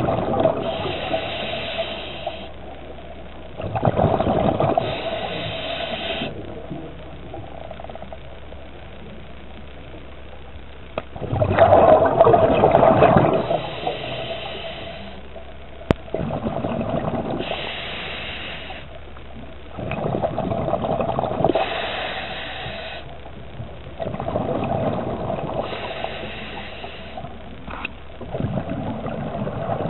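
A scuba diver breathing through a regulator underwater: loud rushes of exhaled bubbles, each followed by the shorter, higher hiss of the next inhale, about six breaths spaced unevenly several seconds apart.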